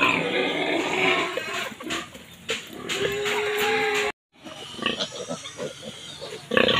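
Young farm animals calling: ducklings first, then, after an abrupt cut about four seconds in, a pen of piglets.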